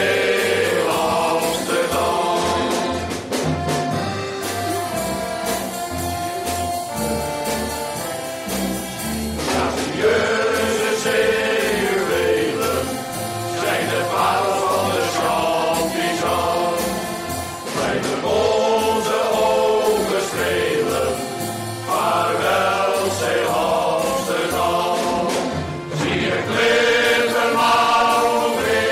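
Shanty choir singing a song in chorus, phrase after phrase without a break.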